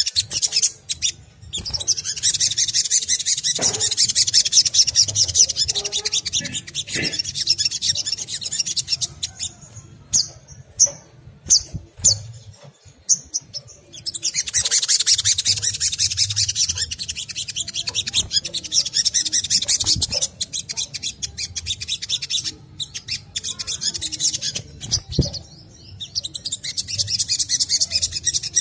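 Olive-backed sunbird (sogon) giving its fast, high chattering twitter in long runs: one in the first third, another in the middle, a shorter one near the end, with single sharp chips in the gaps. This excited twittering is the call used as a lure to set other sunbirds singing.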